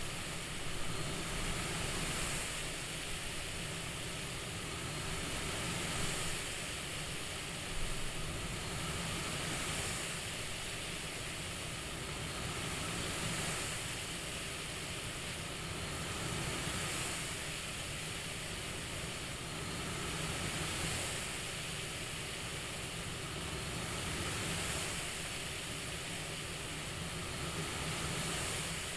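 CPAP-style airflow hiss, a steady white noise that swells gently in a slow breathing rhythm, about once every four seconds.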